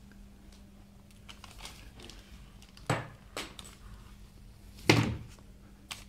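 Two sharp knocks about two seconds apart, the second louder, with a smaller knock just after the first and light rustling between, over a faint steady hum.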